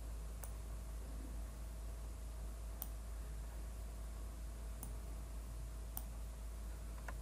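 Computer mouse clicks: five sharp, isolated clicks a second or two apart, over a steady low electrical hum.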